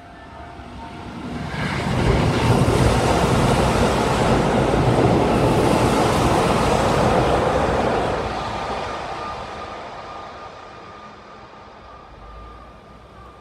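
Keihan 2200-series electric train running past along the platform: a swelling rumble and rattle of wheels on rails, loud for about six seconds, then fading as the train draws away.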